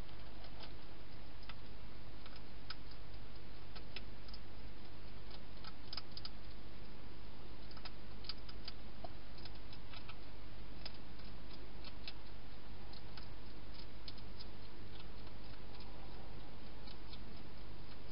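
A wild hedgehog eating dry food, giving irregular quick crunching clicks.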